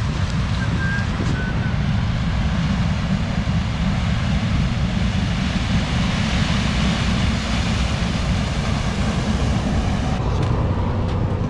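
Combine harvester running as it harvests maize with a 12-row corn header, a steady mechanical noise, with wind rumbling on the microphone.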